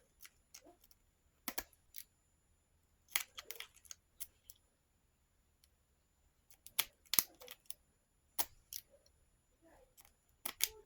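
Lock-picking tools clicking and scraping against a lock, in short bursts of sharp metallic clicks with pauses between them.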